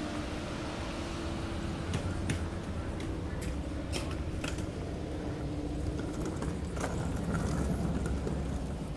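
Street background with a steady low engine hum, like a vehicle idling, overlaid by a scattering of sharp clicks a couple of seconds in that die out after the middle.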